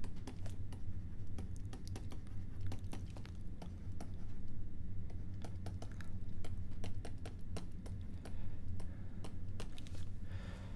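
Pen stylus tapping and scratching on a tablet screen while handwriting, an irregular run of quick clicks over a steady low hum.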